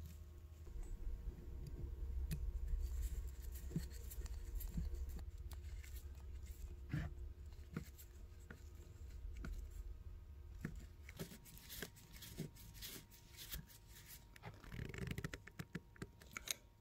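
Faint scattered clicks and light metal scraping as a screwdriver and the small parts of an adjustable wrench (worm spring and pin) are worked into the wrench head, with low handling rumble in the first part; the clicks come thicker in the last few seconds.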